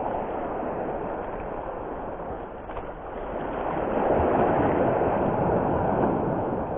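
Rushing noise of wind and sea surf on the shore, swelling louder about halfway through and easing near the end.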